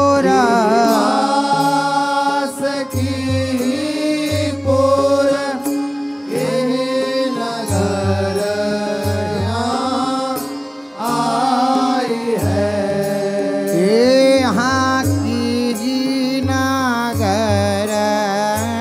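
Indian devotional music from a jhulan pad: an ornamented melody that slides and wavers in pitch, over a low bass pattern that comes and goes in short repeated blocks.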